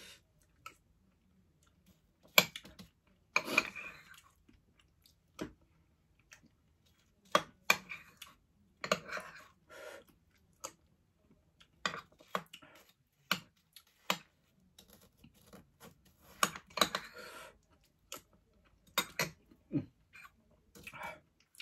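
A person eating ice cream from a spoon, close to the microphone: irregular chewing and mouth sounds, with sharp clicks from the spoon now and then.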